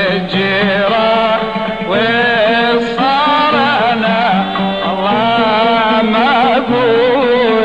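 Iraqi maqam music in Maqam Humayun: a melodic line with wavering, ornamented pitch over sustained lower accompanying notes, playing without a break.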